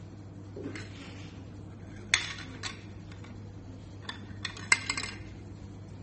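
Hard plastic tumbler, lid and straw being handled: a few sharp clicks and taps, the loudest about two seconds in, then a quick run of clicks near the end as the lid is taken off.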